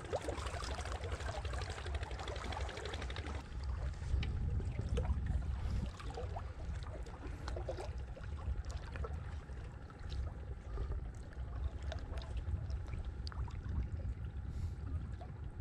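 Water splashing and trickling over a steady low rumble, with scattered small clicks.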